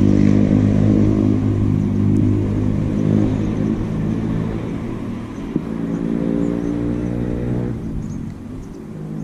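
A motor vehicle's engine running steadily, then slowly fading away over about eight seconds, with one sharp click about five and a half seconds in.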